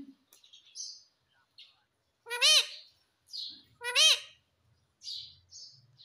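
Indian ringneck parrot calling: two loud, rising-and-falling calls about a second and a half apart, with softer chirps in between.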